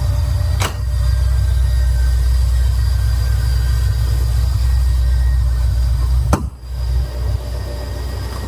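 Corvette V8 engine and road noise while driving: a steady low rumble. Two sharp clicks, one about half a second in and one about six seconds in, with a brief dip in level just after the second.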